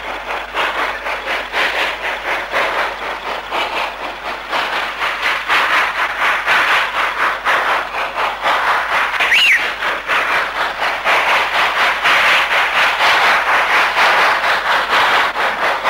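Steam locomotive working a heavy freight train up a grade, its exhaust beating in a fast, even rhythm that grows louder as it approaches. A brief high squeal about nine seconds in.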